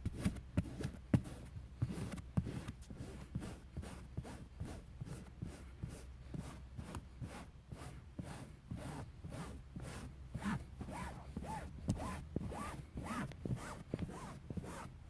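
A piece of stiff rubber belt scraped briskly back and forth across car seat upholstery, about three strokes a second, pulling embedded dog hair out of the fabric. Short squeaks come in during the later strokes.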